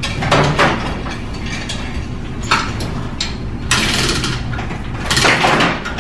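Hand chain hoist being worked to lift a straight-eight flathead engine out of a car: its chain rattles and clinks in short irregular bursts.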